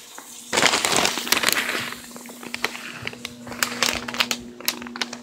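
Plastic bag of birdseed crinkling and crackling as it is handled, densest in the first couple of seconds and then in scattered crackles.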